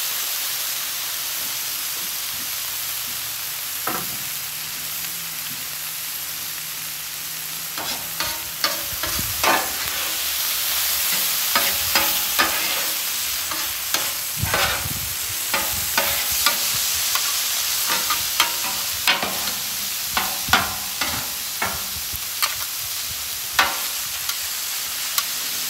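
Cubed ribeye steak and mushrooms sizzling on a hot flat top griddle, a steady hiss. From about eight seconds in, metal spatulas scrape and clack against the griddle's steel top as the food is turned, in many short strokes.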